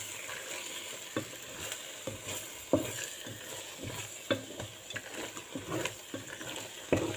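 Wooden spatula stirring penne through thick tomato-and-cheese sauce in a hot metal pot, over a steady sizzle from the pan. A few sharp knocks come as the spatula hits the pot.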